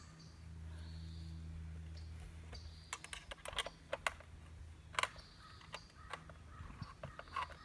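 Irregular sharp clicks and light taps of hard parts being handled, most likely the freshly reassembled pool light fixture, starting about two and a half seconds in, with a low steady hum during the first two seconds.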